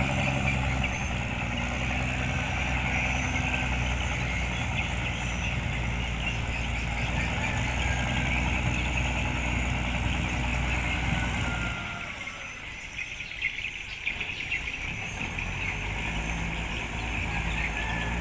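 A boat's engine running steadily, fading away for a few seconds about twelve seconds in and then coming back.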